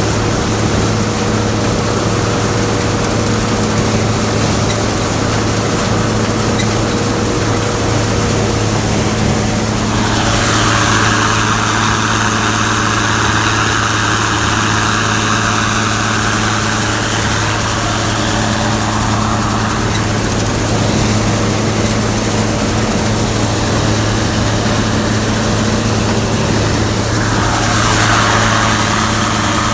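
Gleaner combine running steadily with a constant low engine hum. A hissing rush comes in about a third of the way through, lasts several seconds, and returns briefly near the end.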